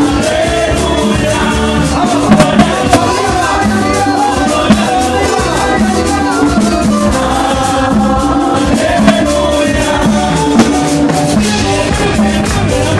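Lively Latin dance music played on stage, with singing, an accordion, drums and a shaker rattling to a steady beat.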